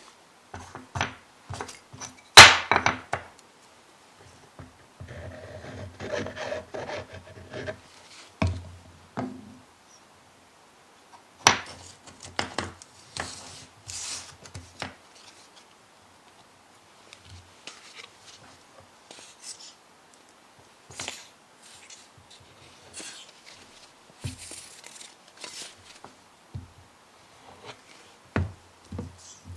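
Wooden blank pieces and veneer being handled on a workbench during glue-up: scattered light knocks and rubbing, with two sharper wooden knocks, one a couple of seconds in and one a little before halfway.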